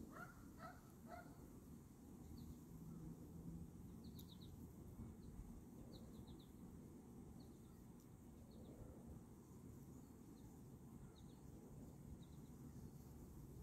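Near silence with a faint low rumble, and small birds chirping faintly: short runs of two to four high chirps every second or so, with three lower calls in the first second.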